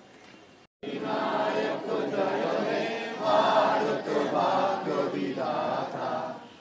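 A large group of schoolchildren singing together in unison, in long held phrases with short breaks. It starts abruptly about a second in, after a faint stretch.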